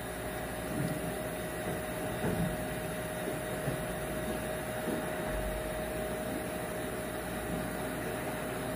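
Transformer soldering gun humming steadily while its hot loop tip pushes a bent staple into cracked plastic seat trim to stitch the crack, with a few faint knocks of handling.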